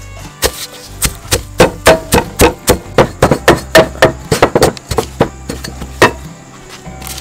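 A knife chopping on a cutting board: quick, even strikes, about four a second, ending with a last single chop about six seconds in.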